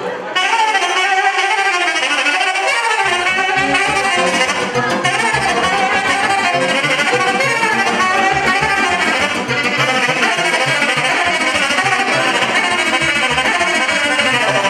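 Live band music: saxophones playing a wavering melody over an electronic keyboard's accompaniment with a steady beat, coming in loud just after the start.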